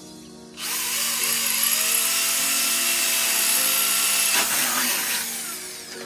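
Corded electric drill running with its bit boring into the sheet metal of a cable tray. It starts about half a second in with a steady whine and dies away near the end.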